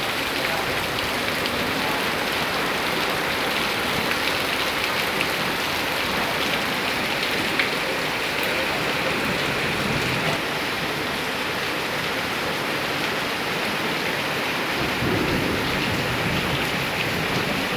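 Heavy rain pouring down steadily, an even hiss of rain falling on surfaces.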